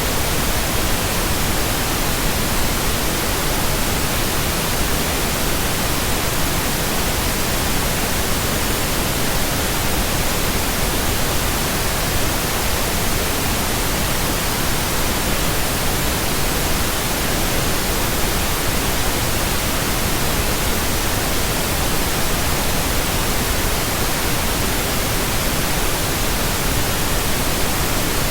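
Steady synthetic pink noise: an even, unchanging hiss spread across all pitches, with no tones or events in it.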